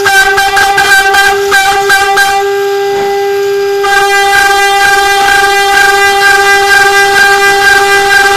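Spindle of a DIY CNC mill turning a two-flute 8 mm end mill at 24,000 rpm in a high-speed cut, a loud steady whine with rough cutting noise over it. The cutter has both flutes broken, which makes it noisy. Between about two and a half and four seconds in, the cutting noise drops away and only the spindle's tone is left, then the cut picks up again.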